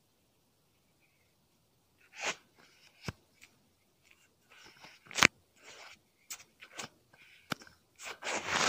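ASMR foley sounds imitating hair washing. After about two seconds of quiet come irregular short hissing bursts and several sharp clicks, the loudest about halfway through.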